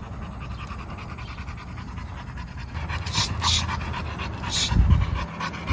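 Pit bull panting, a few quick breaths in the second half, with a low thump near the end.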